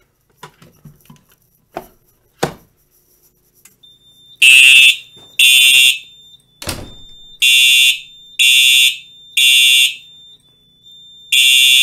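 A few light plastic clicks as the push-button station under its cover is worked. About four seconds in, SmartSync fire alarm horn strobes start sounding the temporal-three evacuation pattern: loud half-second horn blasts about a second apart in groups of three, with a longer pause between groups and a steady high beep underneath. A heavy thump breaks in just before the second group.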